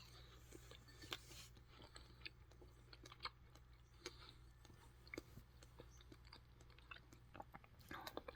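Kiwi fruit being chewed close to the microphone: faint, scattered wet mouth clicks.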